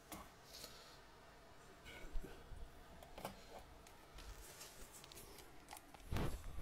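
Handling noise: scattered faint clicks and rustles, then a couple of dull, heavy low thumps near the end.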